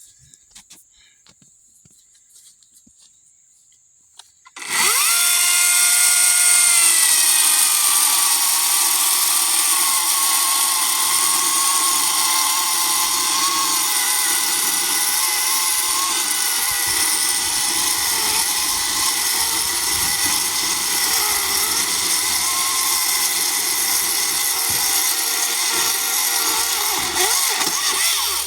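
A chainsaw starts up about five seconds in and runs loud and steady for over twenty seconds as it cuts through a cherry log, its pitch dropping slightly as it bites in. It stops right at the end.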